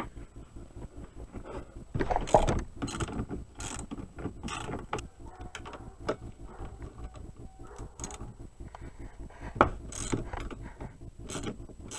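Ratchet wrench clicking in quick runs as the 5/8-inch bolts of a winch roller fairlead are unscrewed, with a few louder metal clanks about two seconds in and near the end.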